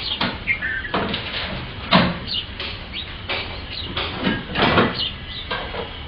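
House sparrows chirping: a run of short, sharp chirps at irregular intervals, some falling in pitch.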